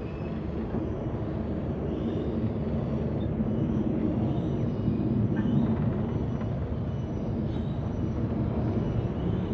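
Park tram running: a steady low rumble from the vehicle, growing slightly louder.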